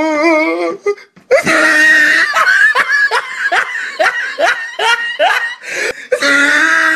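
A person laughing hard, a long run of quick laughing bursts about three a second, with drawn-out squealing stretches of laughter in between.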